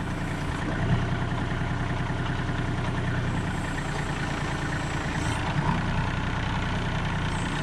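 Kubota L35 tractor's diesel engine running steadily while its hydraulics raise the backhoe outriggers.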